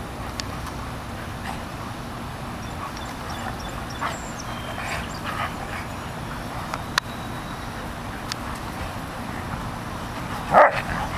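An Airedale Terrier and a yellow Labrador play-fighting: quiet scuffling and small noises over a steady low rumble, then one short, loud bark near the end.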